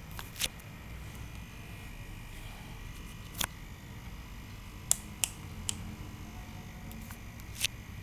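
A clamp meter's rotary range dial clicking as it is turned by hand: several sharp single clicks at uneven intervals, a few grouped together a little after halfway.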